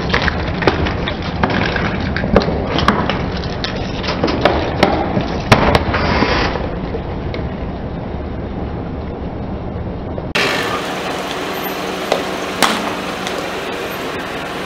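Car tyre rolling slowly over plastic food tubs filled with water beads: many sharp cracks and snaps of breaking plastic over a low tyre rumble for about six seconds. Later a tyre squashes a plastic bottle, which bursts with a single sharp pop near the end.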